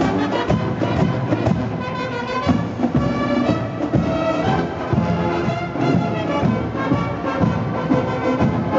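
A large marching band playing: brass and drumline together, with a steady beat.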